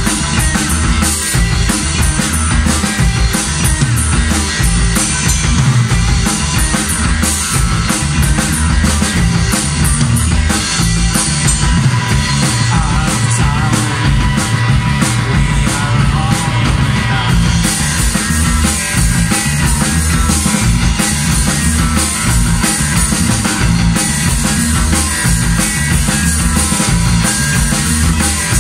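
Rock band playing live and loud: electric guitar, electric bass and drum kit in a steady, driving groove.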